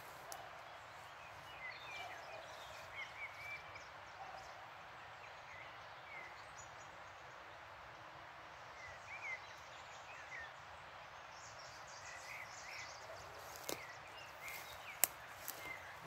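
Steady rush of a river with birds chirping and calling on and off over it. A few sharp clicks come near the end; the loudest, about a second before the end, is the loudest sound.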